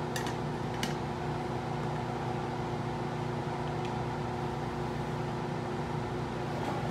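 Laminar flow hood blower running with a steady hum, made up of several steady tones. Two light clicks come in the first second.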